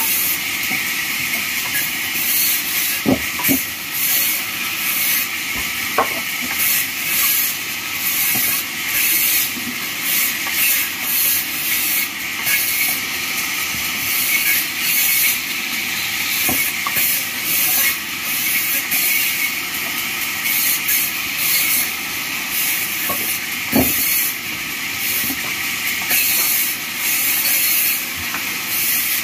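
Vertical bandsaw cutting wooden planks, a steady high hiss of the blade running through the timber. A few sharp knocks of wood pieces are heard, the loudest about three seconds in, six seconds in and near the end.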